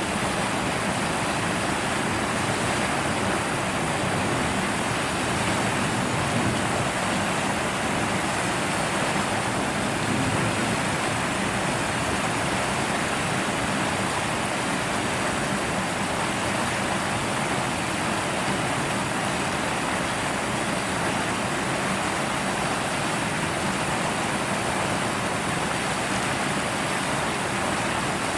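Water rushing steadily down the stepped moat of a chimpanzee enclosure, a constant even roar.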